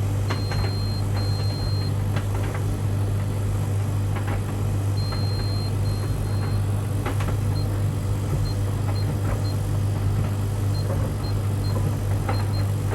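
A tumble dryer runs with a steady low hum. Over it, a washing machine's control panel beeps high and thin as its buttons and dial are worked: two longer beeps just after the start, two more about five seconds in, then a run of short pips, with faint clicks of the buttons.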